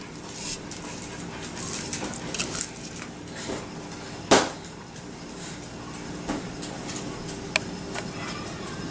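Raw chicken wings being handled and turned in a plastic mixing bowl, giving soft irregular rustles and clicks. A single sharp knock comes about four seconds in and a small click near the end, over a steady low background hum.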